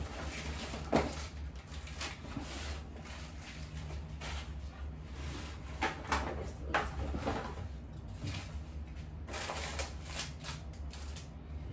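Diaper packs and a cardboard box being handled in a closet: scattered rustles and light knocks over a steady low hum.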